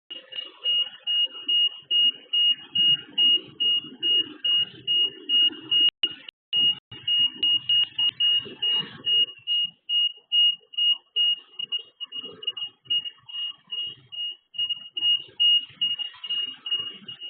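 High-pitched electronic alarm beeping rapidly and steadily, about three beeps a second, sounding across a town; at first taken for a personal safety (anti-molester) buzzer.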